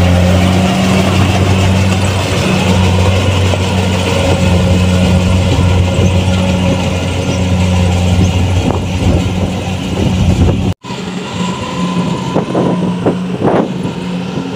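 Kubota rice combine harvester's diesel engine running steadily up close, a loud low hum. About eleven seconds in the sound cuts off abruptly and the machine is heard again, quieter.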